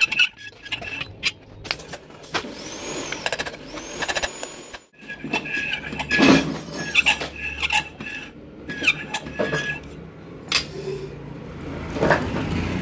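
Hammer blows on a steel drift driving a valve guide into a diesel engine cylinder head: sharp metallic knocks, each with a short ringing tone, coming in clusters, loudest about six seconds in.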